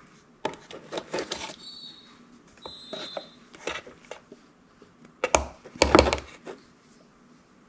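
A tablespoon scooping cocoa powder and tapping and scraping against its container and a mug: scattered light clicks and scrapes, with a couple of brief clinks, and a louder cluster of knocks about five to six seconds in.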